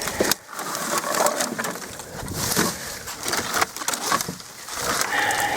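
Crunching, rustling and knocking of junk and debris being pulled aside and stepped through, with many sharp irregular clicks and cracks.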